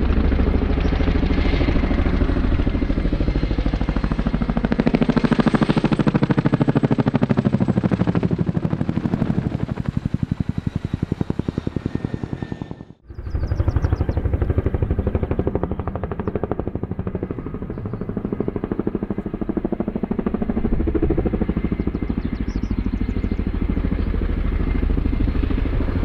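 CH-47 Chinook tandem-rotor military helicopter flying, its rotor blades chopping rapidly over the engine noise. The sound drops out for a moment about halfway through, then another Chinook pass picks up.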